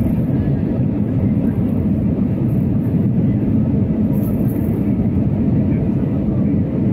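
Airbus A320 cabin noise heard from a window seat during descent: the engines and the air rushing past the fuselage make a steady, dense low rumble.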